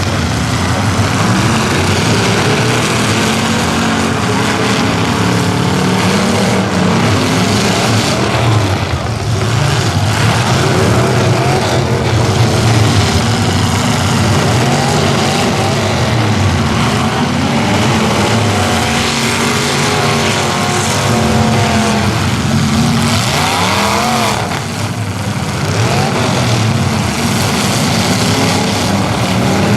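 Several demolition derby cars' engines running through open headers, revving up and down over one another as the cars accelerate and back off, with an occasional brief knock of contact.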